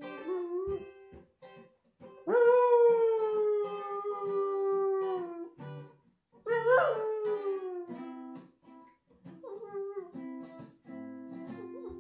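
Barbet dog howling along to guitar music: a long howl about two seconds in that slowly sinks in pitch, then a second that rises and falls about six seconds in.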